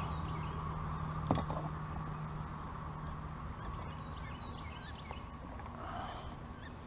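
A single sharp snap about a second in as a bowfishing bow is shot, followed by faint bird chirping.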